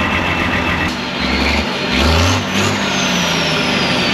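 Heavy diesel race-truck engine revving briefly about a second in, then settling, with a thin high whine falling slowly in pitch afterwards.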